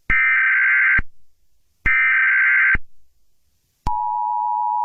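Emergency Alert System SAME header: two identical digital data bursts of just under a second each, about a second apart, the last of the header's three repeats. About four seconds in, the EAS two-tone attention signal starts and holds steady.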